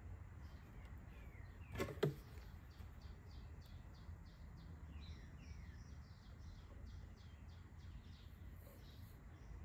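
Faint birds chirping: many short, quickly repeated high chirps with a few falling whistles, over a low steady hum. Two sharp clicks a little under two seconds in, from tools being handled on a workbench.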